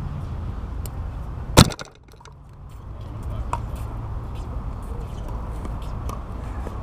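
One loud, sharp crack of a plastic pickleball striking something close by, about one and a half seconds in, after which the background briefly drops away. Fainter pops of paddles hitting balls on nearby courts come through over a steady outdoor rumble.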